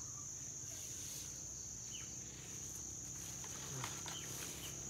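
Insects in the vegetation droning steadily at a high pitch, with a few faint short chirps over the top.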